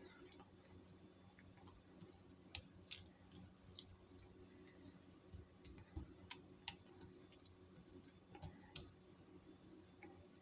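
Near silence with faint, irregular small clicks and ticks over a low steady hum.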